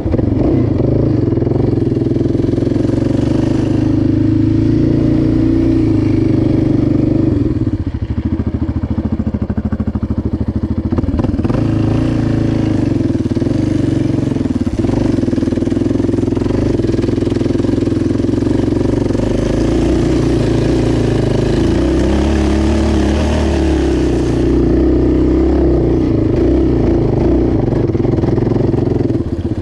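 Yamaha Raptor 700 ATV's single-cylinder four-stroke engine running under way on dirt, close to the handlebars. The throttle eases off about eight seconds in and picks up again, and the engine note shifts several more times.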